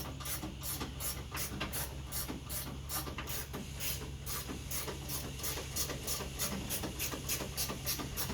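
Ratchet wrench working the door hinge bolts: a rapid, even rasping at about four strokes a second over a steady low hum.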